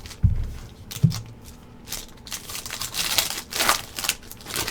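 Two dull knocks, then a foil trading-card pack wrapper crinkling and being torn open.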